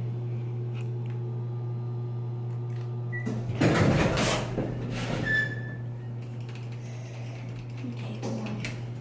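Elevator doors sliding, the loudest sound about three and a half seconds in, over a steady low hum. Two short high beeps come just before and about a second after the door sound.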